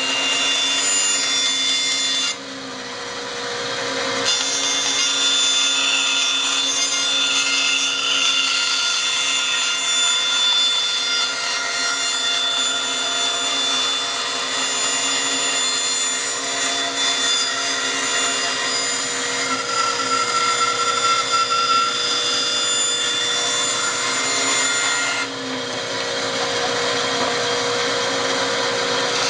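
Bandsaw running steadily, its blade cutting curves in plywood, with a constant motor hum and whine. The level drops abruptly twice, a couple of seconds in and near the end.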